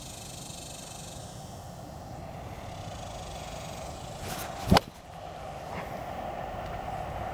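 A golf iron striking the ball off the tee: one sharp, loud click about four and a half seconds in.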